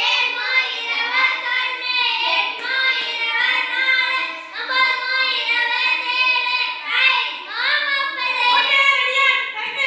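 Children's voices chanting in a sing-song rhythm.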